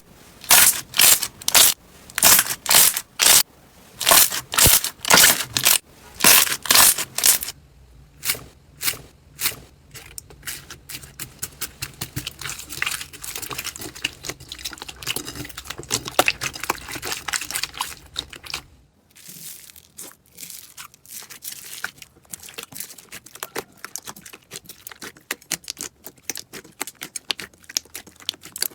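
Crunchy slime being squeezed and pressed by hand. At first it gives loud crisp crunches about twice a second. From about a third of the way in, the crackling is denser and more continuous. Near the two-thirds mark it changes abruptly to fine, rapid crackles.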